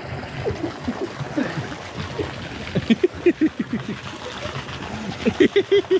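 Pool water sloshing and gurgling close to the microphone as a swimmer is towed through it, with runs of quick bubbly blips about three seconds in and again near the end.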